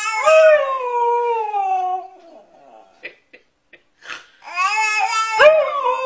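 A husky howl-talking: a drawn-out wavering call that slides down in pitch over about two seconds, then another falling call near the end. Between the two calls a baby answers with a short high squeal.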